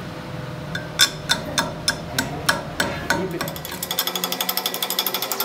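A hammer striking a freshly welded steel axle shaft about eight times, roughly three blows a second, each with a short metallic ring. Near the end, a fast, even tapping of about ten taps a second takes over.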